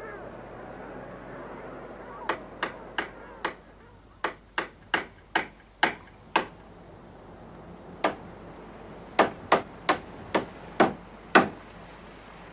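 Hammering: about sixteen sharp blows in runs of four to six, with short pauses between runs and the last blows the loudest.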